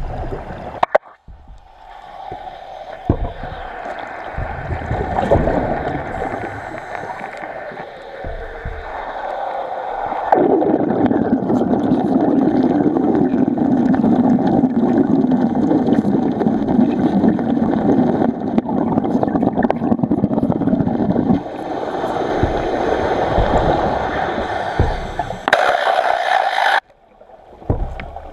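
Underwater wet stick welding: the electrode's arc crackling and bubbling as a sacrificial anode's strap is welded onto a steel plate. It is heaviest for about ten seconds in the middle, with a short louder hiss near the end.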